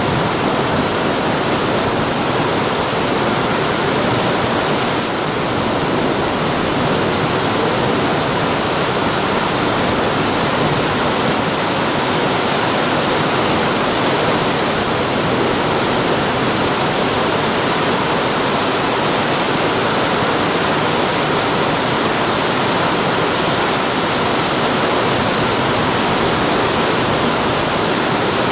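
Heavy downpour from a supercell thunderstorm, a steady, loud rushing roar of precipitation hitting the road and meadow without letting up.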